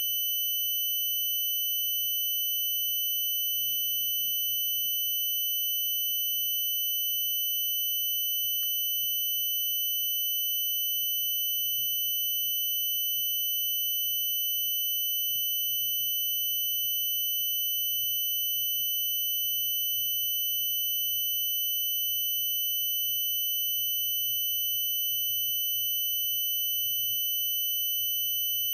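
A steady, unbroken high-pitched electronic tone with overtones, holding one pitch throughout. There is a faint click about four seconds in.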